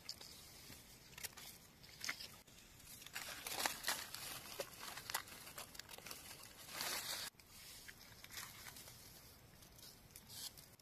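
Faint rustling and crackling of dry forest leaf litter being disturbed, in scattered bursts with a few small clicks; the strongest bursts come about three and a half seconds in and again about seven seconds in.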